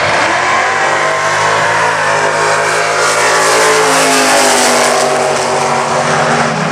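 Drag-racing pickup truck launching off the starting line at full throttle and running down the strip, the engine loud throughout. Its pitch falls over the second half as the truck passes and pulls away.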